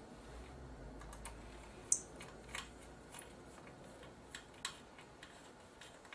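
Small irregular clicks and ticks of a screwdriver turning tiny screws back into the LCD panel of a Sony PMW-EX3 camcorder, the sharpest click about two seconds in.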